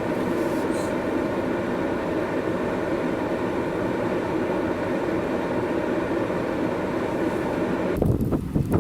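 A steady mechanical running noise holding a constant pitch, with no rise or fall. It cuts off suddenly near the end.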